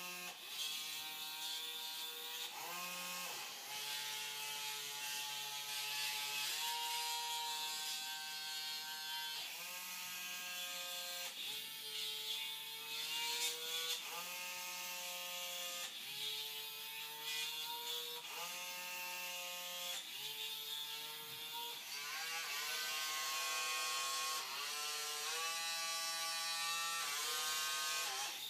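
Small hobby robot arm's geared DC motors whirring in a string of short runs, each a second or two long. The pitch shifts from run to run, and some runs start with a rising whine.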